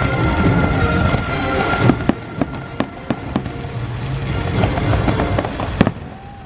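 Fireworks bursting in a run of sharp bangs over loud show music, with one sharp bang near the end.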